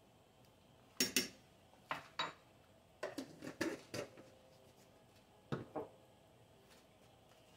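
A metal spoon clinking against a stainless steel stockpot of soup: sharp clinks in small groups, two pairs, then a quicker run, then one more pair.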